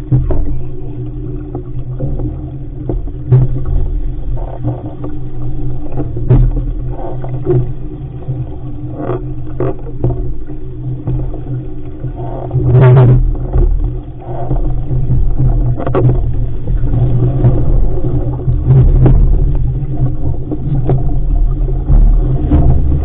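Wind buffeting the microphone of a deck-mounted action camera on a fast-sailing RS500 dinghy: a loud, steady low rumble. It is broken by scattered sharp knocks and slaps as the hull meets the chop.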